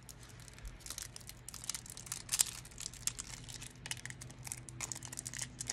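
Clear plastic shrink-wrap crinkling and tearing as it is picked at and peeled off a card deck box, in many small irregular crackles.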